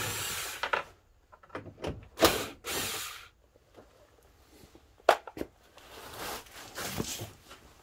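Hands and tools working at a van's plastic front grille: short rasping scrapes about a second long, three times, and two sharp clicks about five seconds in.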